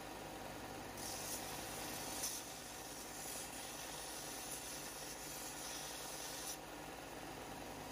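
Benchtop belt sander running with a steady motor hum, with a hissing rasp in several strokes as a plasma-cut steel part is ground against the belt. The grinding stops about six and a half seconds in while the motor keeps running.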